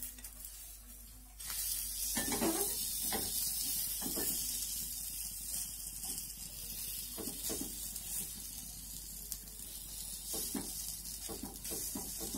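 Banana pancake batter sizzling in a small nonstick mini pan. The sizzle starts suddenly about a second and a half in, with a plastic rice paddle scraping and knocking against the pan several times.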